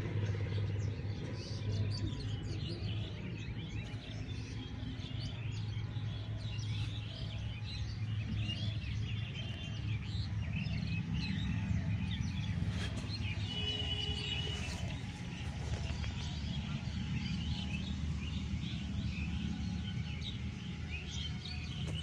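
Many birds chirping and calling at once, short overlapping calls throughout with a few held whistled notes about halfway through, over a steady low hum.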